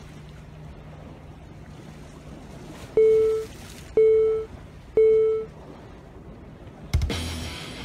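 Three short electronic countdown beeps, one a second, each the same mid-pitched tone fading quickly, over a steady wash of sea and wind. About two seconds after the last beep comes a loud, sharp hit effect, and music starts.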